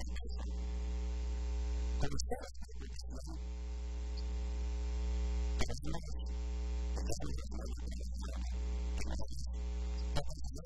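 Steady electrical mains hum: a deep drone with a row of even overtones above it, the upper overtones and hiss dropping out briefly several times.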